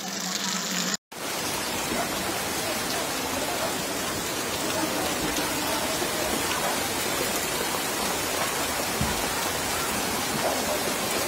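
Heavy rain hissing steadily on a wet street. The sound drops out for an instant about a second in, then carries on unchanged.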